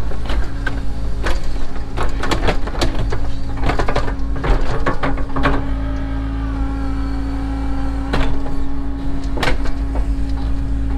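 Cat 307 excavator's diesel engine running steadily, heard from the cab, with hydraulic whine as the bucket is worked. Frequent sharp clanks and rattles, densest in the first half, with a couple more later on.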